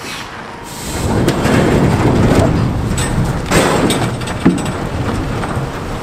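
Hardwood logs sliding out of a tipped shipping container and tumbling onto the ground: a rumbling slide that builds about a second in, with heavy wooden knocks and thuds, the loudest a little past the middle.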